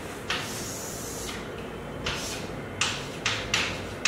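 Chalk writing on a blackboard: a longer scratchy stroke near the start, then several short strokes in quick succession.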